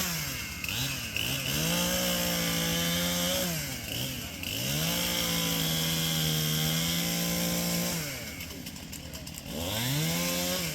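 Chainsaw cutting into a tree trunk, held at full throttle in long runs with its pitch dipping briefly between them. It drops toward idle about eight seconds in, then revs back up near the end.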